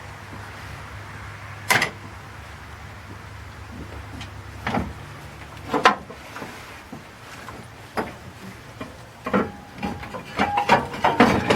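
Irregular knocks and clunks of a truck's fan shroud being worked up and out of the engine bay, with a quicker run of rattling knocks near the end.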